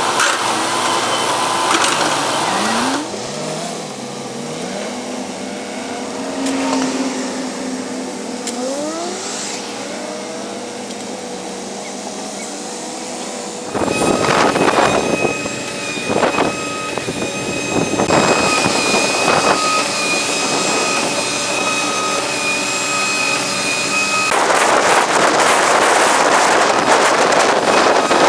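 Diesel excavators working, their engines revving up and down under hydraulic load. About halfway through it grows louder, with a run of clanks and knocks from the machine's bucket and steel work, over a steady high whine.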